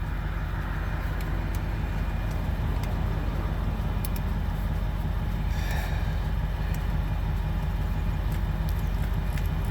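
Steady low hum of an idling vehicle engine, with a few faint clicks of hand tools on metal.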